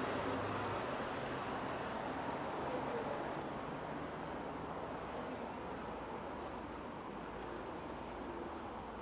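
City street traffic noise: the wash of a passing vehicle slowly fading away.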